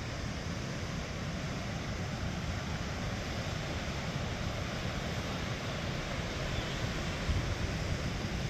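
Steady rush of the Deschutes River running over rocky rapids, with a low wind rumble on the microphone.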